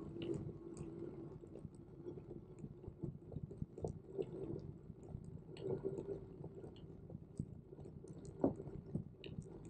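Brompton Electric folding bike being ridden, rattling and clicking irregularly over a steady low hum.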